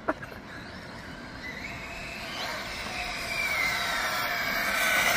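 Sensored brushless motor and drivetrain of an Arrma Felony RC car running on 8S, a high whine that glides up and down in pitch with the throttle and grows steadily louder as the car comes closer.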